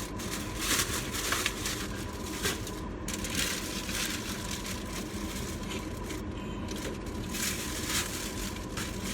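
Irregular crinkling and crunching handling noises from eating, in short bursts over a steady low hum.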